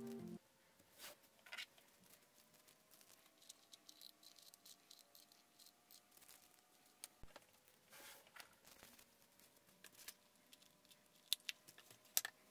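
Instrumental background music cuts off just after the start, leaving near silence with scattered faint clicks, taps and rustles, a faint steady hum that slowly rises in pitch, and two sharper clicks near the end.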